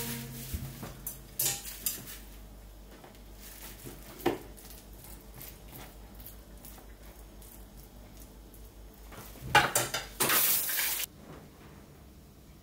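Wooden chopsticks tapping and scraping in a ceramic rice bowl as freshly microwaved brown rice is loosened, with a few sharp knocks. About nine and a half seconds in comes a louder rustling noise that cuts off suddenly.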